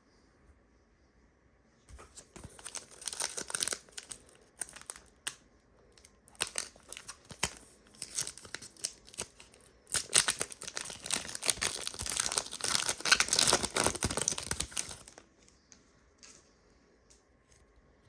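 Wrapper of a Panini Prizm basketball card pack crinkling and tearing as it is ripped open by hand. It starts about two seconds in as scattered bursts of crinkling, becomes loudest and nearly continuous for the last few seconds, then stops abruptly.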